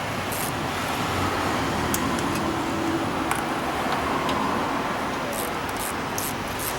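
Torque wrench ratcheting in short strokes, tightening the cover bolts, with a few sharp clicks, over steady workshop background noise.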